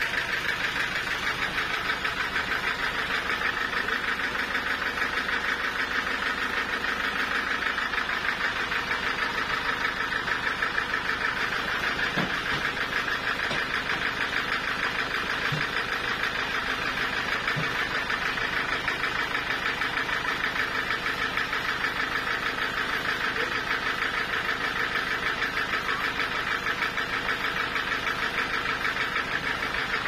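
Band sawmill's engine running steadily, unloaded, with a fast even pulse and the blade not cutting. A few soft knocks come in the middle.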